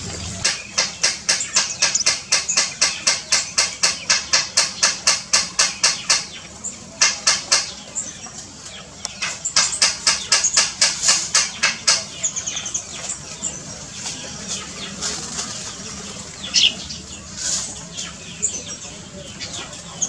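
A bird's wings flapping in bursts of quick, evenly spaced beats, several a second. After about 12 seconds there are a couple of short bird chirps.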